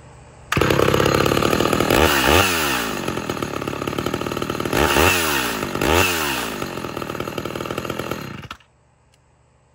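Homelite Super XL two-stroke chainsaw starting on the first pull while hot, then running and revved up and back down three times before it stops abruptly near the end.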